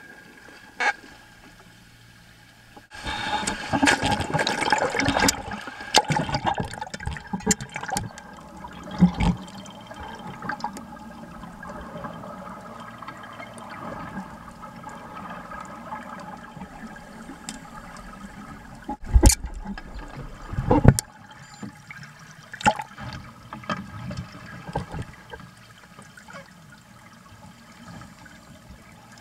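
Seawater sloshing and bubbling around a camera at the surface, with a burst of splashing a few seconds in and scattered clicks. Two loud knocks come about two-thirds of the way through.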